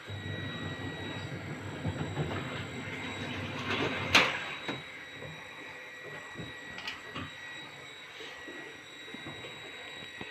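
Hands working on a front-loading washing machine's door and plastic handle parts: scraping and rustling, then one sharp loud click about four seconds in, followed by a few lighter clicks.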